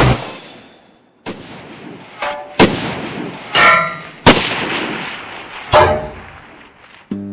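Four gunshot sound effects, each a sharp crack with an echoing tail, spaced about one and a half seconds apart, with a metallic ringing between the second and third.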